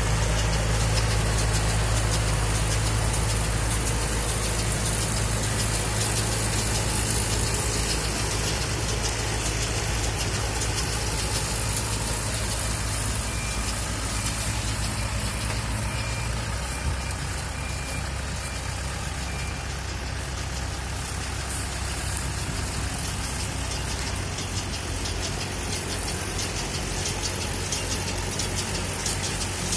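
Tractor engine running steadily while driving a Fimaks RB170 round baler. The engine note drops a little past halfway.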